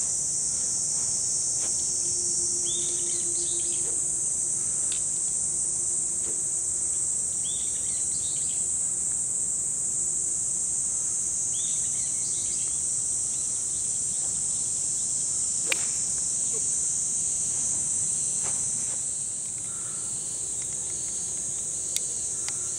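Steady high-pitched drone of summer cicadas, with a bird calling three times in the first half. A sharp click of a golf club striking a teed ball sounds about two-thirds through, and another near the end.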